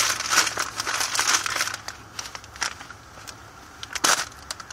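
A brown paper bag crinkling as hands rummage inside it: dense rustling for the first couple of seconds, then scattered crackles and a short burst of crinkling near the end.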